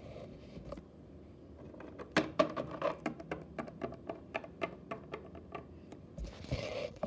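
Hard plastic toy figures being moved by hand and tapped against a wooden floor, making a quick irregular run of light clicks, then a brief rustle near the end.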